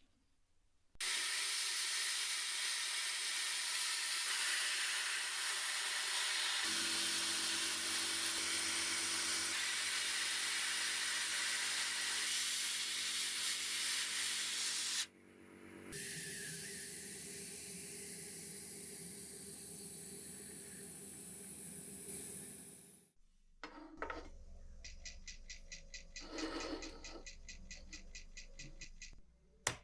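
Loud, steady hissing from a workshop tool, with a steady hum joining in about a quarter of the way through. It stops, comes back quieter, and near the end gives way to a fainter sound with a fast, regular flutter.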